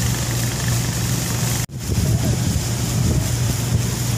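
Steady drone of a Mahakam river-taxi boat's engine under way, mixed with wind and water noise. The sound drops out sharply for an instant about a second and a half in, then the same drone resumes.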